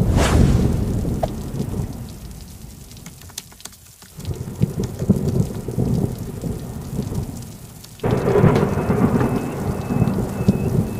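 Thunder rumbling over rain: a crack of thunder at the start that rolls away, a second rumble about four seconds in, and a louder stretch from about eight seconds in.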